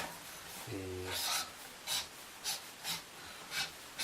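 Short rubbing and scraping strokes of hands on a cardboard PC case box, about five of them roughly half a second apart, with a brief hummed 'um' about a second in.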